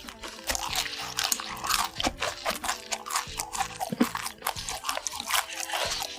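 Crunchy food being bitten and chewed close to the microphone, with many quick crunches, over soft background music.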